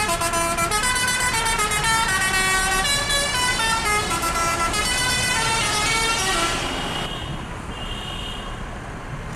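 Bus telolet horn (Basuri multi-tone musical air horn) playing a long, winding melody of stepping notes, several sounding at once, over a low engine rumble. The melody stops about six and a half seconds in, leaving the quieter rumble of engine and traffic.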